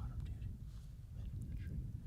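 Wind buffeting the microphone: a steady low rumble, with only faint scattered higher sounds over it.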